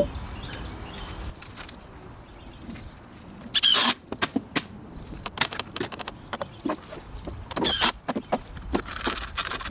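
Cordless DeWalt driver driving long screws through a wooden block into a pressure-treated deck post, in two short bursts about three and a half and seven and a half seconds in, with scattered knocks and clicks of wood and tool handling between.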